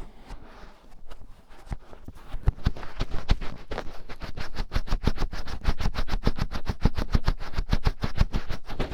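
Fingertip rubbing and scratching inside an ear-shaped microphone for finger ear-cleaning ASMR: quick scratching strokes, sparse at first, then a steady run of about six a second from a couple of seconds in.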